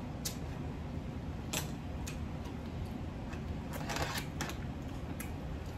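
Cooked Jonah crab shells clicking and cracking as the meat is picked out by hand. There are a few scattered sharp clicks and a busier crackling cluster about four seconds in.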